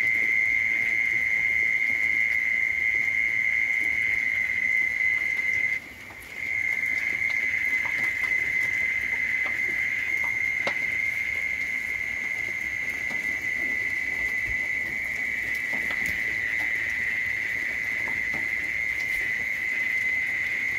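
A steady, high-pitched whine on one pitch, unbroken except for a half-second gap about six seconds in. Faint small clicks and rustles sound under it.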